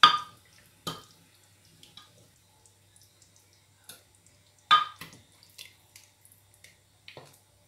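Steel ladle clinking against an aluminium pot as thick kadhi is ladled out, with a few sharp knocks, the loudest at the start and again near the middle, and faint dripping and splashing of liquid between them.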